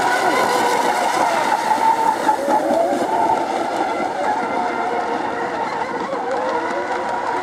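Several radio-controlled 1/8-scale racing hydroplanes running flat out together on the water: a continuous buzzing whine of several pitches that waver against one another.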